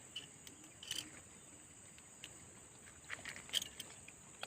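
Faint, steady high-pitched drone of insects in the swamp, with a few scattered light clicks, around a second in and again near the end.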